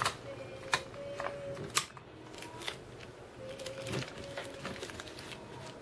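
Fingers pressing and smoothing tape and aluminium foil over a camera's lens mount: faint crinkling with a few sharp clicks scattered through.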